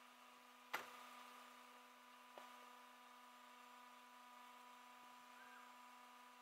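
Near silence: a faint steady hum, broken by one sharp click about a second in, a much fainter click a little later, and a brief faint chirp near the end.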